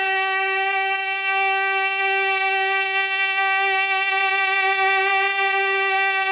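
A male naat reciter holding one long, steady sung note into a microphone, the pitch held level without wavering, with no instruments behind it.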